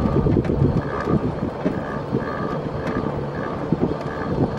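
Wind buffeting the microphone over the low rumble of a slow-moving vehicle, with a faint high tone that comes and goes.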